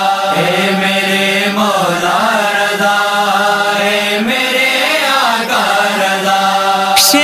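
Wordless vocal chorus chanting a slow melody over a steady held drone, the background chant of a devotional manqabat interlude. A bright swish comes in right at the end.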